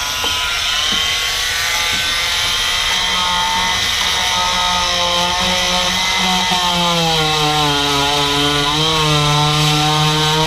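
Cheap Harbor Freight corded oscillating multi-tool running with a rigid scraper blade, scraping old carpet and carpet glue off a boat deck. It runs steadily, and its pitch wavers and dips as the blade is pushed into the material.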